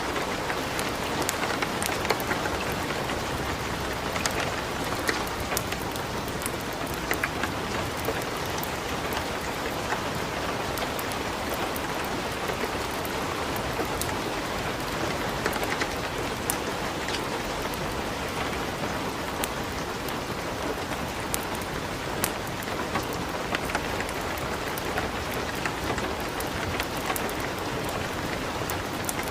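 Steady light rain mixed with a crackling wood fire in a fireplace, with scattered short, sharp crackles and pops over an even rushing patter.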